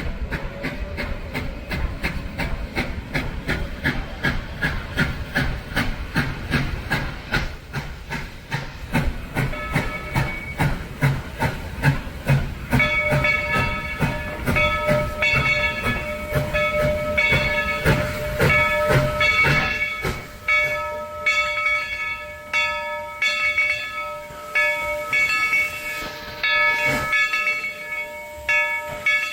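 Steam locomotive hissing and chuffing in a regular beat, several strokes a second. From about halfway a chord-like steam whistle tone sounds over the chuffing, breaking up and sounding again in the last part.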